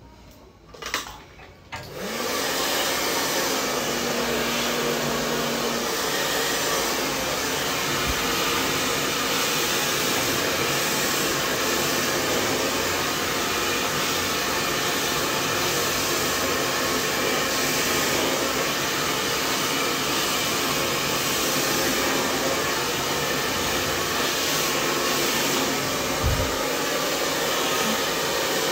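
Handheld hair dryer switched on about two seconds in, then blowing steadily while drying long hair.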